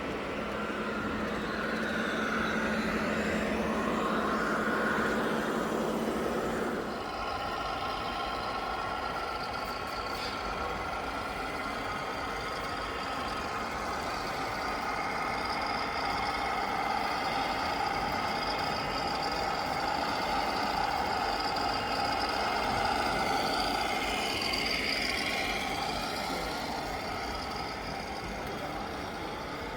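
Radio-controlled model trucks running, with the steady whine of their motors over a constant background din. The sound changes abruptly about seven seconds in, and the pitch shifts again near the end.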